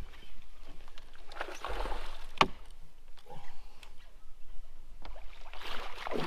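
Water splashing and sloshing as a long-handled landing net is swept through the water to land a hooked bass, with a single sharp knock about two and a half seconds in.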